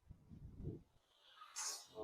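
Faint low rumble of wind buffeting the microphone, in a few soft gusts, with a brief hiss shortly before the end.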